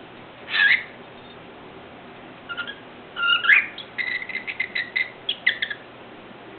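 Cockatiel chirping and whistling: one short call, then after a pause a run of whistled notes that speeds up into a quick string of short chirps, about five or six a second.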